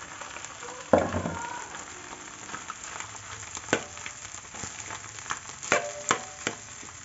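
Rice stir-frying in a large metal wok: a low sizzle under a metal spatula scraping and knocking against the pan. A loud sharp knock comes about a second in, and a few knocks near the end leave the wok ringing briefly.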